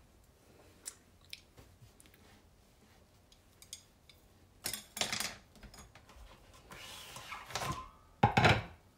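Handling noises at a wooden cutting board: a few light clicks, then louder knocks and rustling about five seconds in, and a sharper knock near the end.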